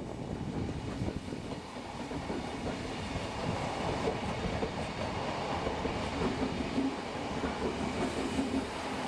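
Odakyu Line train running past the level crossing, a continuous noisy rail sound with a low steady tone joining in about halfway through.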